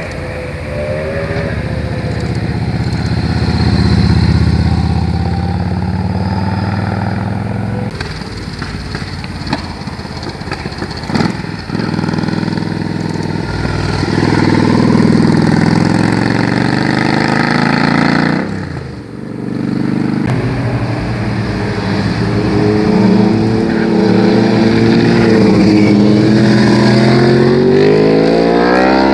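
Motorcycle engines as several bikes in turn ride through tight hairpin bends, the note rising and falling as each one slows into the curve and accelerates out. Near the end the pitch climbs in steps with gear changes.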